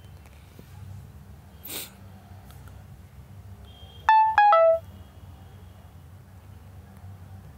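Smartphone notification chime: three quick electronic tones about four seconds in, the third lower than the first two, over a steady low hum. A brief soft hiss comes just before the two-second mark.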